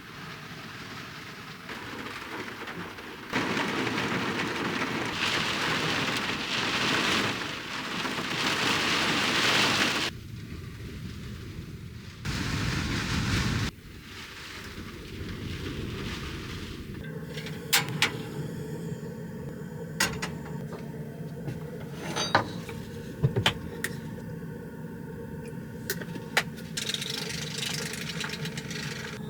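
Rain and storm noise: a steady rushing hiss in several abrupt, cut-apart stretches. Later a steady low hum with scattered sharp ticks, like drops striking a surface.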